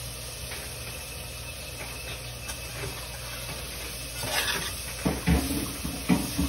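Greens sautéing in hot fat in a pan, with a sizzle that swells about four seconds in. A metal spoon then stirs and knocks against the pan several times near the end.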